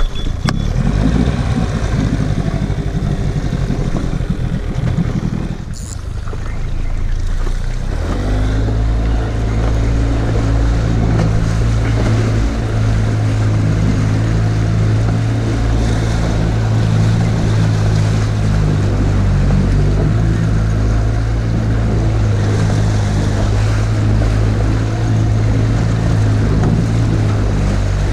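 A small boat's outboard motor running at a steady speed, with water and wind noise; the sound is rougher for the first several seconds, then settles into an even drone.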